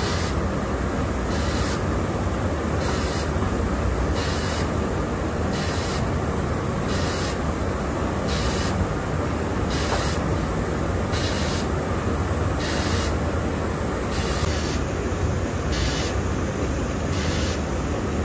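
Electric potter's wheel spinning steadily: a motor hum under a constant hiss, with a faint regular swish repeating about once a second.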